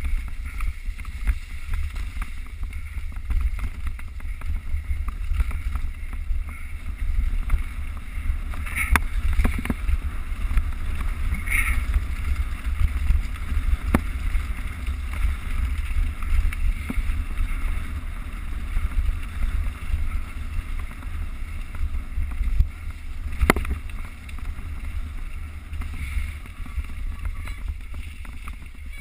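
Mountain bike ridden along a rough trail, heard from a GoPro mounted on the bike: a steady low rumble of wind buffeting and tyre noise, with a few sharp knocks as the bike hits bumps.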